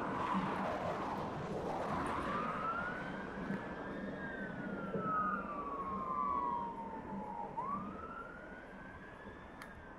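Fire engine's siren on wail: slow rising and falling sweeps, each several seconds long, starting about two seconds in and growing fainter as the appliance drives away. Before the siren, engine and road noise of the truck pulling off.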